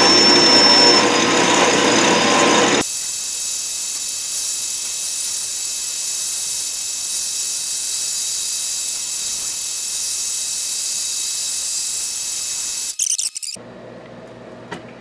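Lathe turning a wooden pattern wheel: noisy cutting for about three seconds, then a steady high-pitched squeal with several held tones for about ten seconds that cuts off suddenly near the end, leaving a much quieter run.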